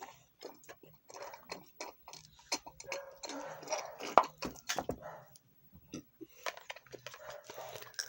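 Someone eating, with irregular small clicks and crunches of chewing; one sharp click stands out about four seconds in.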